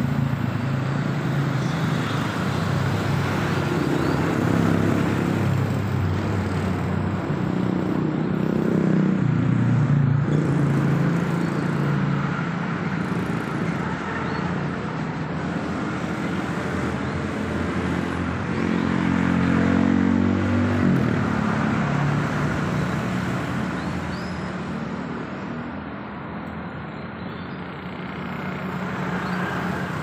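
A motor engine running steadily nearby, its pitch wandering up and down, with a sharp drop in pitch about two-thirds of the way through.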